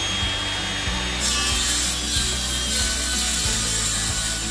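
Circular saw running and cutting through a painted grooved wooden wall sheet: a steady blade whine, with the cutting noise starting about a second in and continuing steadily.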